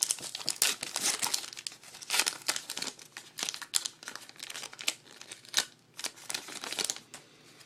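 Plastic trading-card pack wrapper being torn open and crinkled in the hands, a run of irregular crackling.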